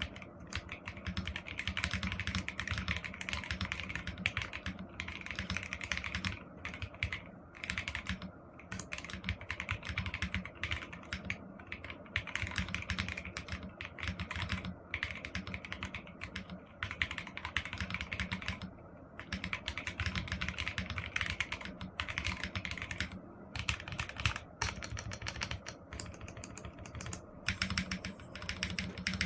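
Steady fast typing on a Sky64 Pro Gen 2 mechanical keyboard with a solid walnut case, KTT Hyacinth linear switches and PBT keycaps, a dense run of keystrokes broken by a few short pauses.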